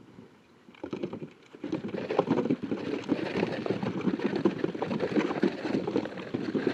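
Many piglets running over dry dirt: the rapid patter of small hooves. It starts faint about a second in and swells into a dense, steady trample.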